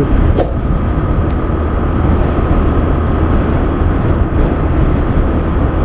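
Bajaj Discover motorcycle's single-cylinder engine running steadily at cruising speed, with strong wind rushing over the camera's microphone.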